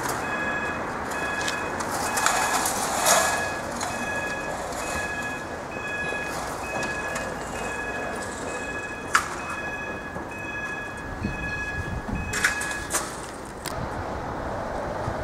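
Level crossing's audible warning alarm sounding a repeating two-note tone while the barriers come down, stopping about two seconds before the end. A few sharp clicks come in its last few seconds.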